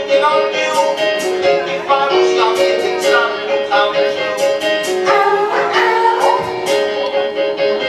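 1980s pop music from a live stage show, played over the theatre's sound system: a quick, bouncy pattern of short repeated notes with crisp high percussion ticks and little bass.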